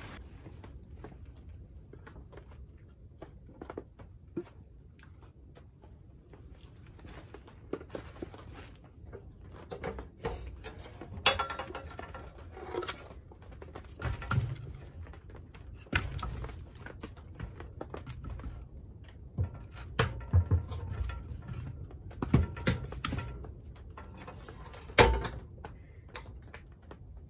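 Scattered knocks, clunks and rustles from tending a wood stove, its firebox door open and the fire worked, with the loudest knock about 25 seconds in.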